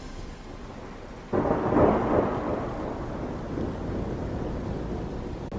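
A sudden burst of rushing, rumbling noise about a second and a half in, dying away slowly over the next few seconds.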